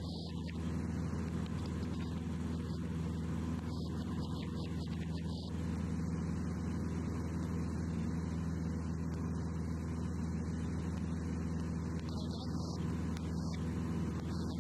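Light aircraft's piston engine running steadily in flight, heard from inside the cabin as an even, unchanging drone.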